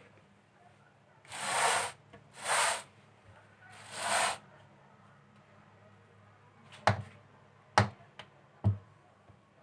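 Silicone spatula smoothing cream in a metal springform cake pan: three loud swishing strokes, then three sharp knocks about a second apart.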